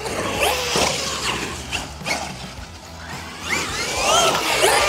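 Traxxas XRT 8S electric RC truck driving on dirt: its brushless motor whines, rising in pitch as the truck speeds up in the second half, over the scrabble and clicks of its tyres on loose dirt.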